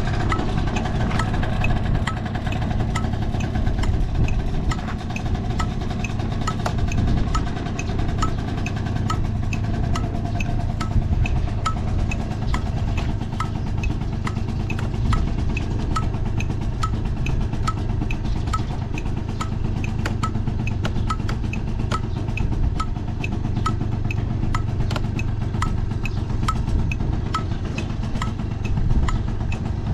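Honda Super Tact AF09's 50cc two-stroke scooter engine idling steadily, with a light, regular tick repeating about one and a half times a second.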